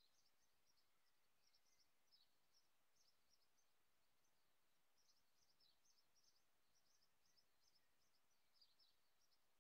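Near silence, with faint high-pitched bird chirps in quick little clusters every second or so over a low hiss.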